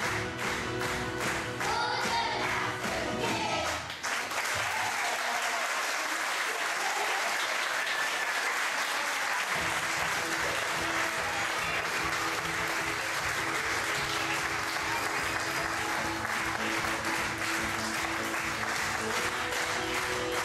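Children singing together over music, ending about four seconds in, followed by an audience applauding. Music starts up again under the applause about halfway through.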